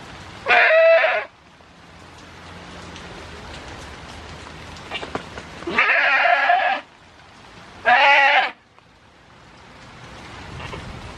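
Goat bleating three times, loud wavering calls each a second or shorter: one about half a second in, then two close together around six and eight seconds in. A steady hiss of rain runs underneath.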